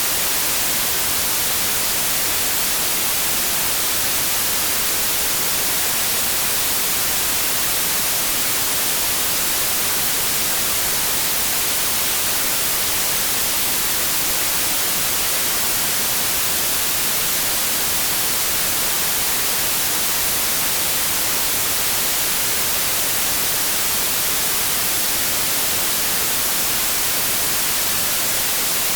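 Steady electronic white noise: an even, unbroken hiss with no changes, strongest in the high frequencies.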